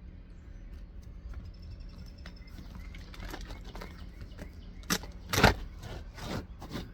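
Scraping, then a few sharp cracks and snaps with the loudest about halfway through, as an asphalt 3-tab roof shingle is pried and torn loose from its nails.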